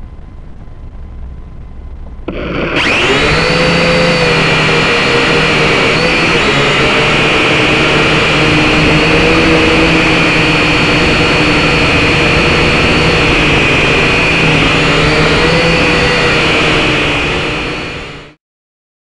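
A SYMA X5HC-1 quadcopter's four small brushed motors and propellers spin up about two seconds in, then run at a loud, steady whine with slight rises and falls in pitch as the drone flies, heard right up close through its own onboard camera. The sound cuts off suddenly near the end.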